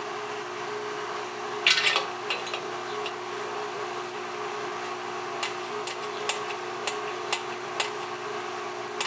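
Sharp clicks and light metallic knocks of a motorcycle gas cap being handled and fitted to the tank: a short clatter about two seconds in, then single clicks about every half second for a couple of seconds. A steady hum runs underneath throughout.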